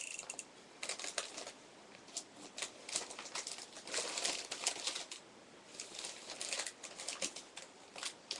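Stiff paper wrapping being handled and pulled at, making irregular crinkles and small clicks, with denser bursts about a second in and again in the middle.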